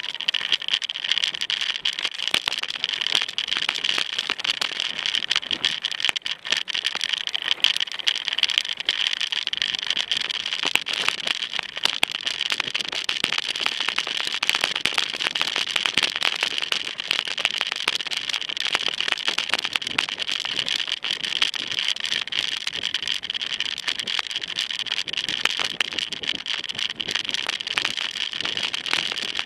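Mountain bike riding over a rough dirt-and-stone trail: constant irregular rattling and clatter from the bike and its mounted camera, under a steady high hiss.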